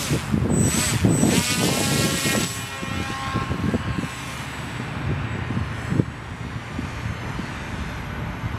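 Motor and propeller of a scratch-built depron pusher RC motor glider whining as it is hand-launched, the whine fading over the first few seconds as the plane flies away. Gusts of wind rumble on the microphone.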